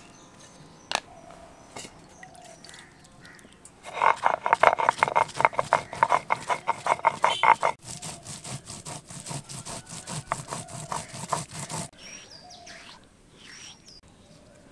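Whole spices (cumin, fennel seed and dried red chillies) being ground on a grooved stone slab with a stone roller: a fast, even run of rasping strokes, about seven a second. The strokes start about four seconds in and soften about halfway through. They stop near twelve seconds, followed by light scraping as the paste is gathered.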